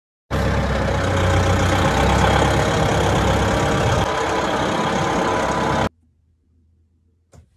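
Tractor engine running steadily, heard from the driver's seat; it cuts off abruptly about six seconds in.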